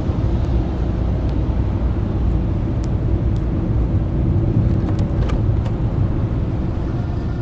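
Steady low rumbling noise, like a running vehicle, with a few faint clicks scattered through it.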